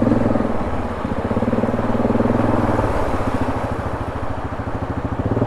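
ATV engine running at low revs, with a steady firing pulse. Its note shifts slightly about half a second in and again around three seconds in.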